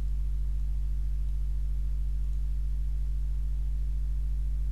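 Steady low electrical hum with a few faint overtones above it, unchanging in pitch and level.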